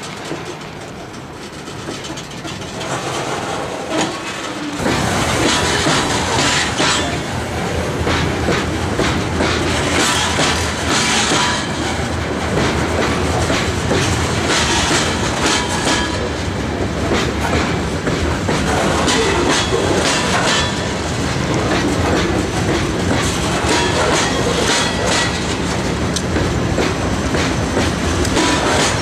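Freight train of covered hopper cars rolling past, steel wheels clicking over rail joints with a steady rumble. It grows suddenly louder about five seconds in.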